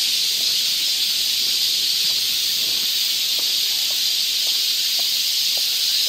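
Cicadas buzzing in a summer forest, a steady high-pitched drone that does not let up. From about halfway through, faint footsteps on a dirt path come about twice a second.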